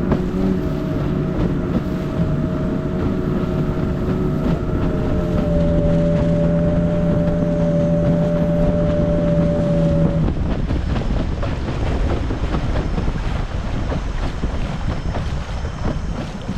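Outboard motor of a river longboat running at a steady pitch, with wind on the microphone and water noise. About ten seconds in, the engine's steady tone drops out, leaving wind and water noise.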